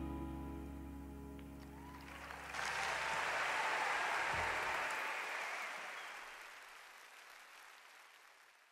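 The last sustained chord of a slow ballad dies away, then about two and a half seconds in a large audience breaks into applause, which fades out toward the end.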